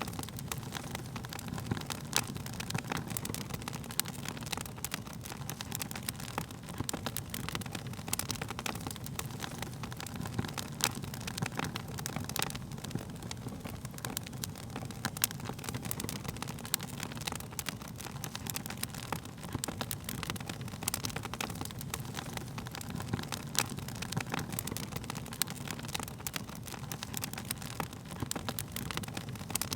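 Wood fire burning with a steady low rush of flames and frequent irregular sharp crackles and pops.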